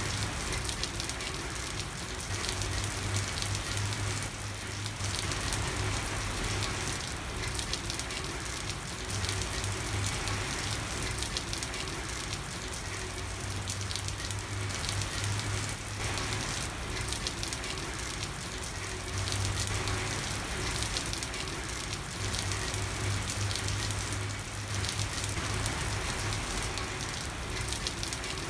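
Steady rain falling on a street: an even hiss of drops, with a low hum that swells and fades every few seconds.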